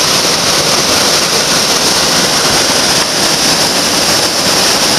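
Whitewater of a river waterfall rushing steadily and loudly.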